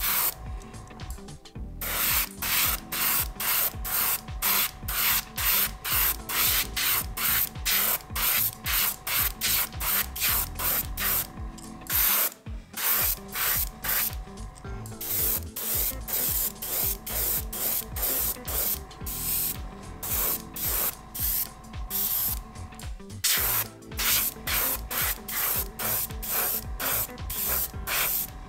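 Airbrush spraying paint onto a hard-bait fishing lure in rapid short bursts, about three a second, with a few brief pauses.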